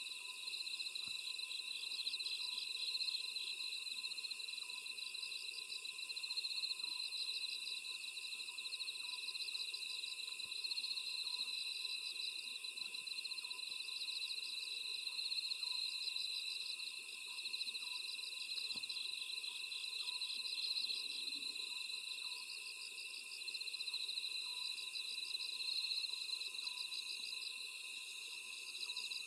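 Night chorus of crickets and other grass insects: steady high trilling with rapid pulsing chirps. Under it, the fainter, repeated calls of an oriental scops owl.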